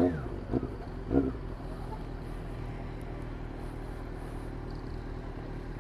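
Motorcycle engine running steadily at low speed through a slow turn, heard from on board, with a low hum and light road and wind noise. A few short vocal sounds stand out in the first second or so.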